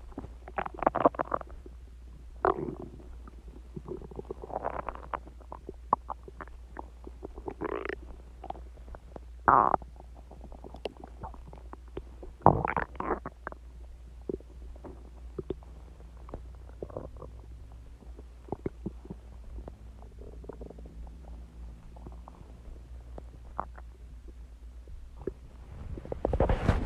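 A person's stomach growling after a meal of eggs, ice cream and Coke: irregular gurgles and squelches with small clicks, the loudest about 10 and 12.5 seconds in, over a steady low hum. A louder noise sets in near the end.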